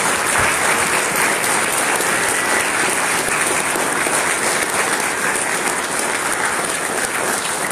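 A congregation applauding steadily.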